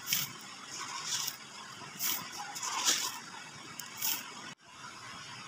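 Granulated sugar being poured into a bowl, heard as about five short hissing rushes roughly a second apart. The sound cuts out abruptly near the end, leaving a faint steady hiss.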